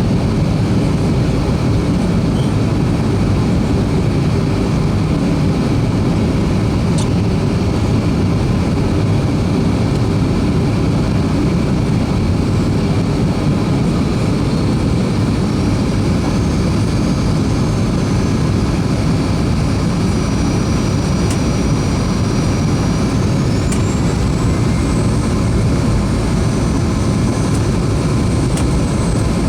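Steady cabin noise of a Boeing 737-300 on approach: the rush of airflow and the drone of its CFM56 jet engines. About two-thirds of the way through, a faint high whine rises in pitch.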